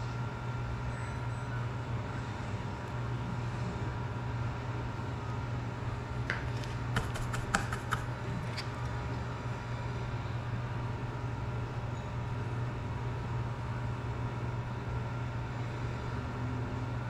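Steady low room hum, with a short cluster of sharp clicks and taps about six to nine seconds in as the solder reel and small tools are handled on the workbench.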